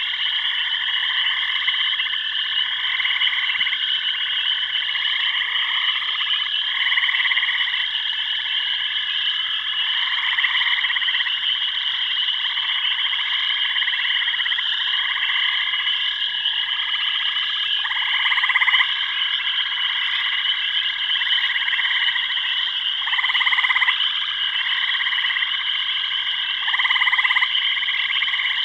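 Dense chorus of frogs calling: a continuous high trilling over overlapping pulsed calls that come every second or two, each lasting about a second.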